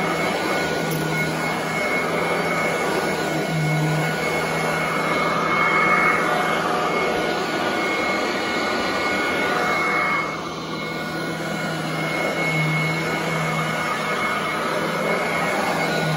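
Royal commercial upright vacuum cleaner running steadily while it is pushed back and forth over carpet, a continuous motor hum with a steady whine. The level dips briefly about ten seconds in.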